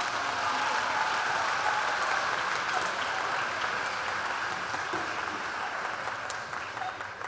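Audience applauding, a steady clapping that dies down near the end.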